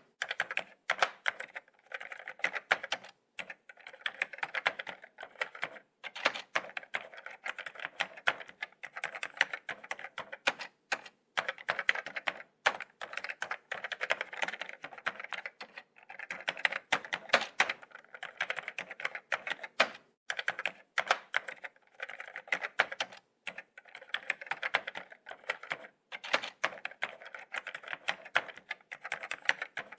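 Laptop keyboard being typed on: a steady stream of quick, light key clicks with brief pauses between runs.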